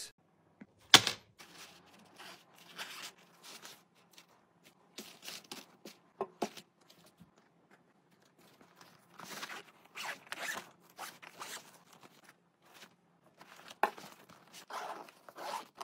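Zippers on a fabric travel shoe bag being run open and shut in short rasping bursts, mixed with rustling of the fabric and mesh as the shoes are handled. A single sharp click about a second in.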